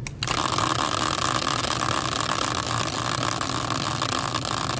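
A click, then a prize wheel spinning on its stand with a steady mechanical whirring.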